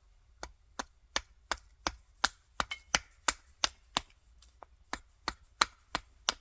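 Rapid, evenly paced axe strikes chopping into a green wild cherry billet, about three sharp hits a second with a brief pause partway through.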